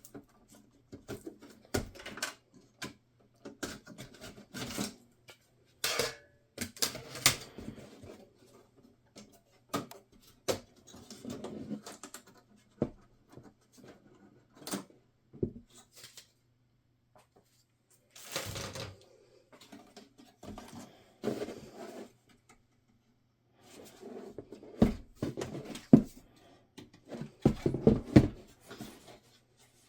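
An HP EliteDesk 805 G6 small-form-factor desktop being taken apart by hand: irregular clicks, knocks and scraping of its metal and plastic parts. The loudest knocks come in a cluster near the end, over a faint steady hum.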